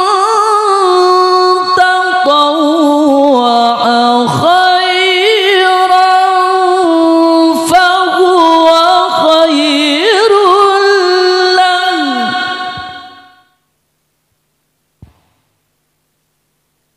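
A male Quran reciter (qari) chanting a verse in melodic tilawah style through a microphone, one long ornamented phrase held in a single breath with wavering pitch, fading out about thirteen seconds in. A faint click follows a little later.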